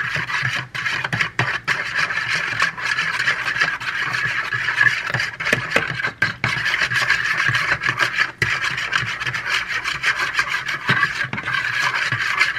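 Metal fork beating an egg with water in a mixing bowl, the tines scraping and clicking against the side of the bowl in a fast, steady rhythm.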